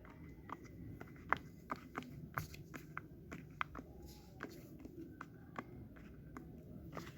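Light, irregular clicks and taps, two or three a second, from small plastic fidget toys being handled.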